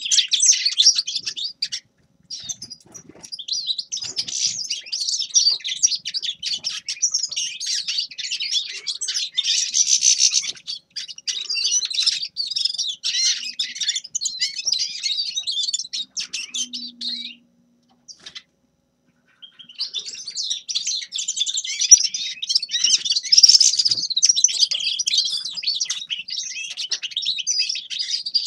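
Grey-crowned goldfinch singing a long, rapid twittering song, with a pause of about two seconds past the middle before it starts again.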